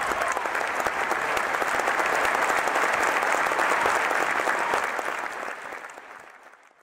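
Crowd applauding: a dense, steady clapping that fades out over the last two seconds.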